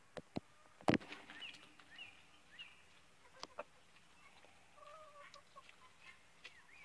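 Backyard chicken flock clucking faintly, with short high chirps throughout and a longer call about five seconds in. A sharp knock sounds about a second in.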